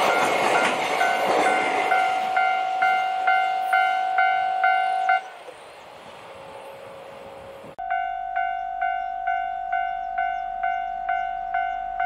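Railway level-crossing electronic bell ringing about twice a second while container freight wagons rumble past and fade. The bell stops abruptly about five seconds in, then starts again abruptly near eight seconds in.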